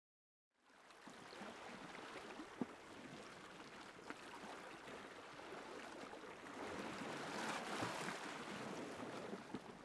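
A faint rushing, hissing noise fades in about half a second in, with a few sharp clicks and crackles scattered through it, and swells a little near the end.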